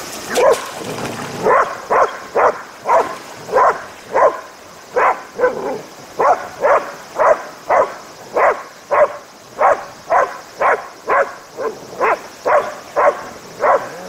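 A dog barking over and over in a steady rhythm, about two barks a second.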